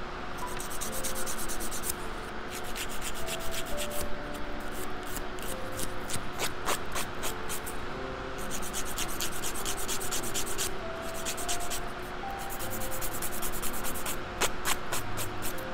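Nail file rasping across long fingernail tips to shape them, in quick back-and-forth scratchy strokes that come in runs with short pauses between them.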